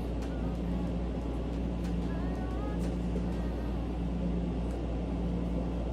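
Home fetal Doppler speaker hissing with static, with a faint whooshing pulse about once a second as the probe searches the belly. The baby's heartbeat is only weakly picked up.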